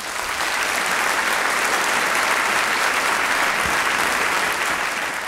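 Audience applauding, swelling into full, steady clapping over the first second.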